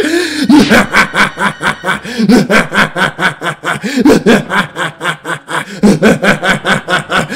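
A voice actor laughing as Dark Sonic: a loud, fast, unbroken run of 'hah-hah' laughs, several a second.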